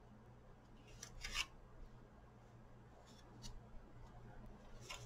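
Card stock rustling and sliding under the hands as it is handled and lined up: brief faint rustles about a second in and near the end, with a couple of soft ticks between.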